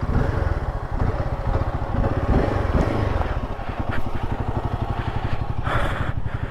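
Royal Enfield Himalayan 450's single-cylinder engine running with a steady, even low pulse.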